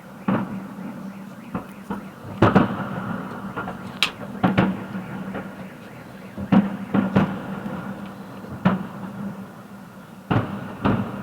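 Fireworks shells bursting overhead: about a dozen irregular bangs, some in quick pairs, each with a short rumbling tail, over a steady faint low hum.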